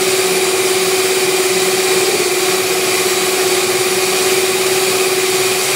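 Mondial Prática 400 W stand mixer running at a steady speed, its motor giving an even whine as the beaters whip eggs and sugar into a batter.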